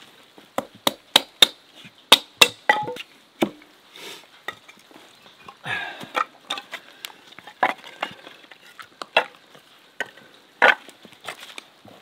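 Irregular series of sharp knocks and cracks, several a second at their thickest, with a brief scraping rustle partway through.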